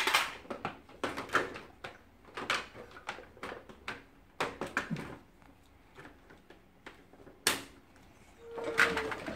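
Hard plastic pieces of a VTech Toot-Toot Drivers Police Patrol Tower playset clicking and knocking as they are handled and pushed into place, in a string of short separate knocks, with one sharp knock about seven and a half seconds in.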